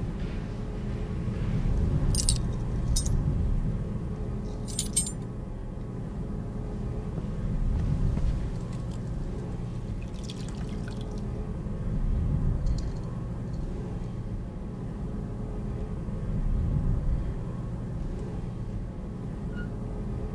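A low, dark drone that swells every four or five seconds, with a few sharp metallic clinks about two, three and five seconds in, and a faint trickle of water about ten seconds in.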